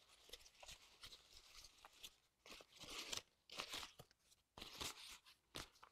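Crumpled, tea-stained paper being unfolded by hand, crinkling faintly in irregular bursts that grow louder from about halfway through.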